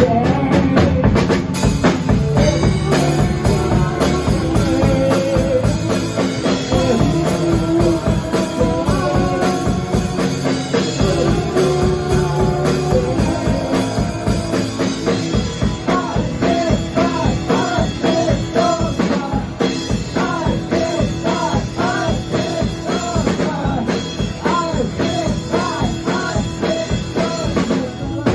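Live rock band playing loudly: drums on a Pearl kit with electric guitars and bass, at a steady driving beat.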